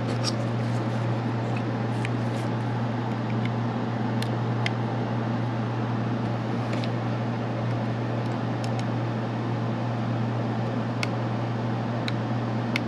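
A steady low mechanical hum, with faint scattered clicks of a cutter blade prying at the edge of an Intel Core i7-3770K's integrated heat spreader.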